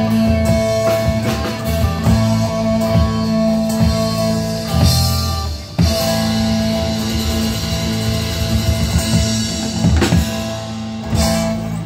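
Live band playing rock music on electric and acoustic guitars with a drum kit. The music drops away at the very end.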